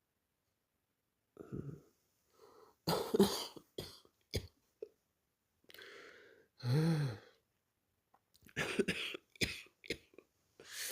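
A man hiccuping over and over: short, abrupt hics at uneven intervals, some of them voiced, starting after a second or so of quiet.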